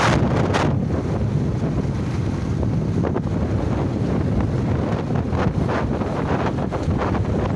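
Wind buffeting the microphone on a moving motorcycle, a dense steady rumble with the bike's running noise buried in it. Gusts swell briefly near the start and again a little past the middle.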